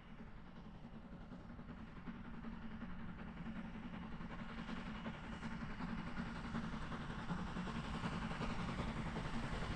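Steam train approaching on the railway, its running sound growing steadily louder.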